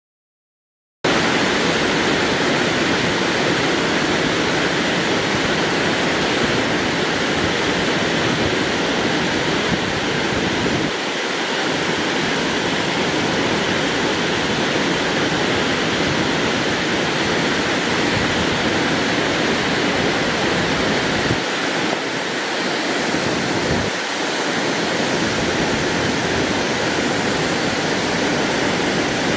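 Burney Falls, a tall waterfall of many streams falling into a pool, rushing steadily. It starts suddenly about a second in, after silence.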